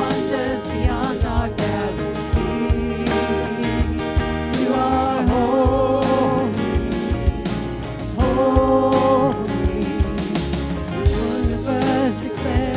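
Contemporary worship band playing a song, with voices singing long held notes over a steady drum beat.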